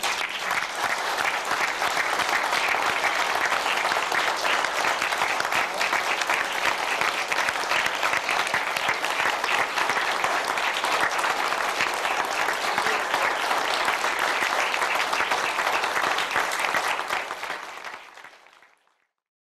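Audience applauding steadily after a lecture. The applause dies away over the last couple of seconds and the sound goes silent.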